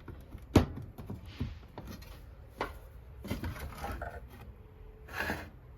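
Plastic parts being handled and fitted together: a sharp knock about half a second in, then a few lighter clicks and brief rustling.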